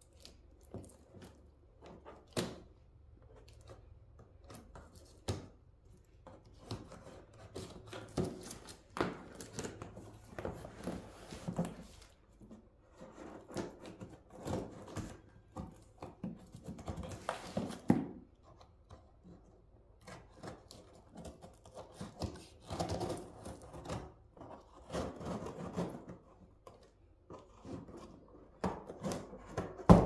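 Cardboard box and packaging being handled while a vacuum cleaner is unboxed: irregular rustling, scraping and knocking, with one sharper knock about eighteen seconds in.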